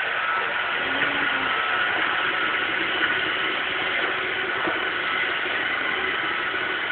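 Roomba robot vacuum running: a steady whirring of its motor and brushes with a thin, steady high whine.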